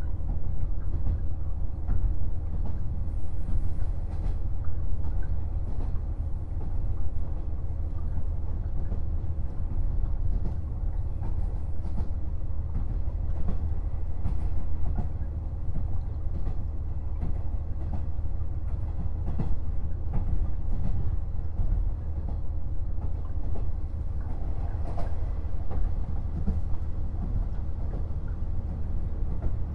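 KiHa 48 diesel railcar running along the line, heard on board: a steady low diesel engine drone with occasional clicks from the rail joints.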